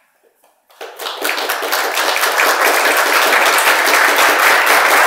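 Applause: many hands clapping, breaking out about a second in, building quickly and then holding steady and loud.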